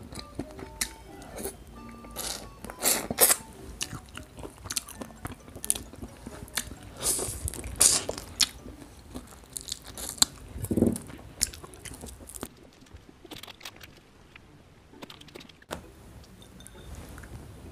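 Close-miked crunching and crackling of food: a string of sharp, irregular cracks, thinning out near the end.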